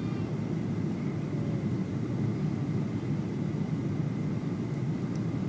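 Steady cabin roar of a Boeing 737-900 on final approach with its flaps extended, the engines and rushing airflow heard from inside the cabin over the wing, with a faint steady high whine above it.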